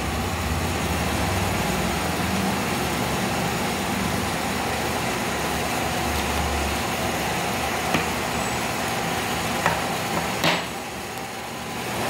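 Steady mechanical room hum, with three sharp clicks in the last few seconds as an Alexandrine parakeet's beak knocks a red metal lipstick tube against a tabletop.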